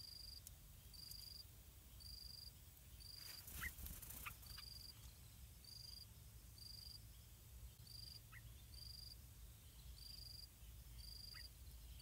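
An insect chirping in a steady, high-pitched rhythm, roughly one and a half chirps a second. It is faint. There is a brief rustle about three and a half seconds in, and a few short, faint chirps are scattered through.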